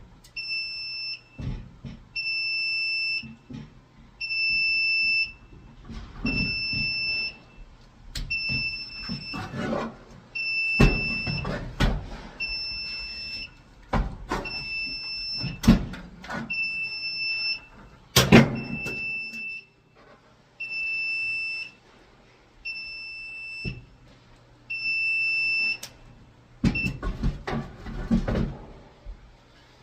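Fire alarm control panel's trouble sounder beeping: a steady high tone about a second long, repeating roughly every two seconds, signalling a power trouble from failing backup batteries. Between the beeps come clicks and knocks of the battery terminals and cover being handled, the loudest a sharp knock about 18 seconds in.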